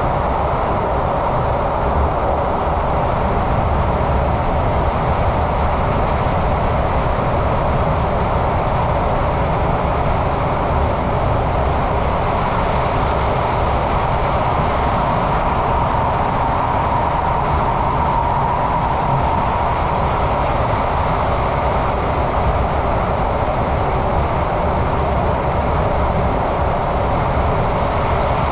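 Singapore MRT train heard from inside the carriage while running between stations: a steady rumble of wheels and motors with a faint constant whine that swells slightly a little past halfway.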